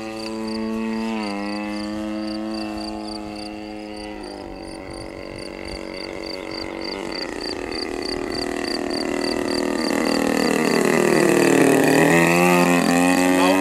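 RCGF 26cc single-cylinder two-stroke gasoline engine of a radio-controlled Pitts Special biplane in flight. Its pitch drops twice in the first few seconds, then it grows louder as the plane comes in low, the pitch dipping and rising again near the end.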